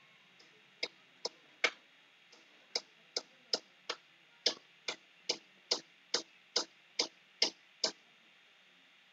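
A series of about sixteen sharp, short clicks, roughly two or three a second and evenly spaced, with a brief pause after the first three; they stop near the end.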